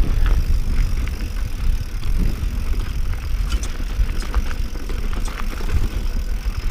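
Mountain bike rolling downhill over rocky singletrack: tyres on rock and the bike rattling, with scattered sharp clicks and knocks. A heavy low rumble of wind on the microphone runs under it.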